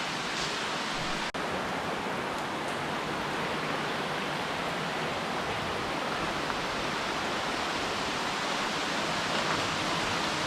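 Steady rushing of a canyon stream's water, an even roar with no pauses. It drops out very briefly about a second in.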